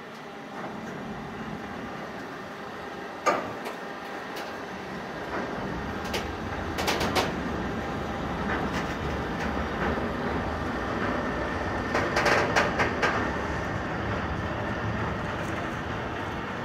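Freight train of container and tank wagons rolling past: a steady rail rumble that builds, with sharp clacks of wheels over the track, the loudest single clack a few seconds in and clusters of clacks around the middle and about three quarters of the way through.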